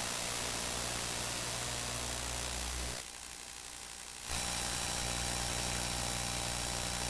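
Natural-gas compressor station machinery running: a steady engine drone with a low hum and hiss. It turns quieter for about a second, about three seconds in, then comes back at full level.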